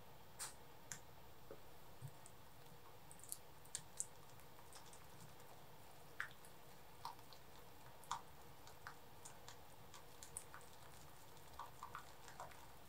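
Red silicone-coated whisk gently mixing softened butter into whipped cream in a glass bowl, giving faint, irregular clicks of the whisk against the bowl.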